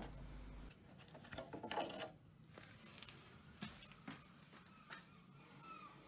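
Faint handling sounds: a few light knocks and clicks as the drain hose bung is pushed back in and the metal catch tray is lifted.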